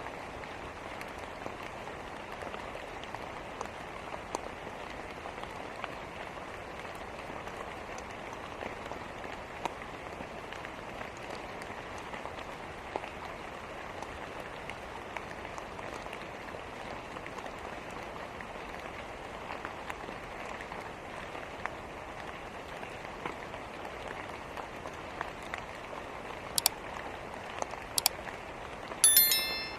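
Steady rain falling with scattered faint ticks, and a wood fire crackling: a few sharp, loud pops near the end, the loudest a quick cluster of snaps just before the end.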